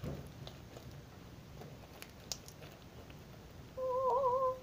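Faint crackling and squishing of beaded slime being squeezed in the hands. Near the end comes a short, wavering hum, under a second long and the loudest sound here.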